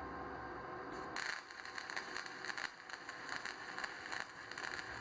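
Stick-electrode welding arc struck about a second in, then crackling steadily with a dense, irregular sputter. The arc is being started on a preheated workpiece.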